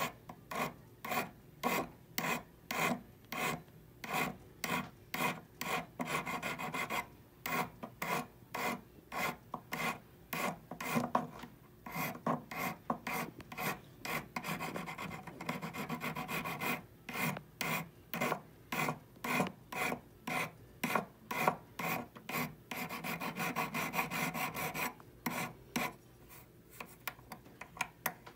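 Hand file rasping across a hollow 14kt gold bangle in back-and-forth strokes, about two a second, with stretches of quicker short strokes. Near the end the filing stops.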